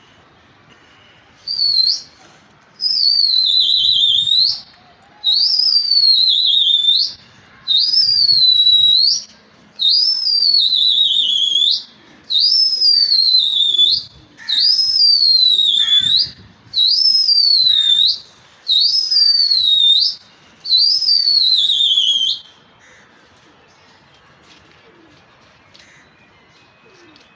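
A person whistling loudly, about ten long notes in a row, the first a short one. Each note slides down in pitch and then flicks sharply up at its end, the call a pigeon keeper whistles to his flying flock. The whistling stops a few seconds before the end.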